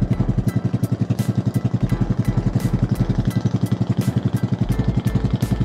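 Boat engine running steadily, a rapid even chug of about nine or ten beats a second, with sharp ticks scattered over it.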